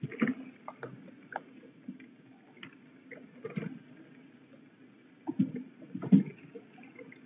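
Young peregrine falcons flapping and scrambling on a wet wooden nest ledge, making irregular knocks and thumps. The loudest come just after the start, around three and a half seconds, and twice between five and six and a half seconds, over a steady patter of rain.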